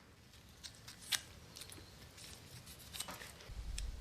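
Faint handling sounds of brake lubricant being spread on a brake caliper bracket: light scattered clicks and scrapes, with a sharper click about a second in. A low rumble starts near the end.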